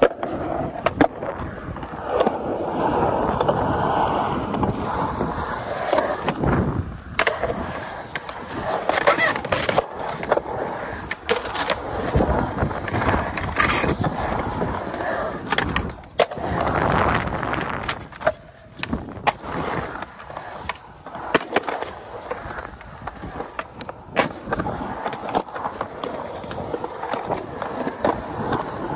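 Skateboard wheels rolling on smooth concrete ramps and transitions, with sharp clacks from the board and wheels striking the concrete at intervals throughout.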